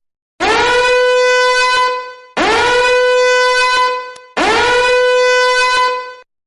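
A meme sound-effect horn blast played three times: each blast swoops up into one loud, steady, brassy note held for about two seconds, with the three repeats evenly spaced.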